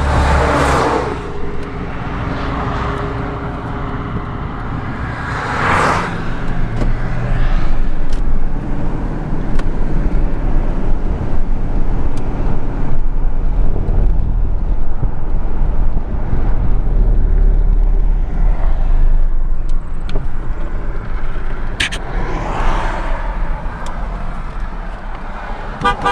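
Highway traffic going past on the roadside, with vehicles swelling by around the start, about six seconds in and near the end, over a steady low rumble.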